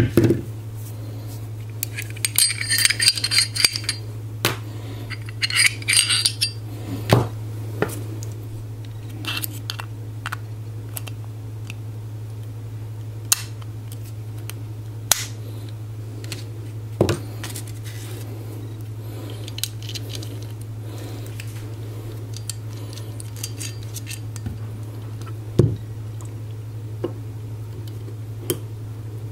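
Small metal parts and a hand tool clicking, clinking and scraping as a Glock slide's rear cover plate is taken off and a custom slide plate fitted, with two spells of rapid metallic jangling in the first seven seconds and scattered sharper clicks after. A steady low hum runs underneath.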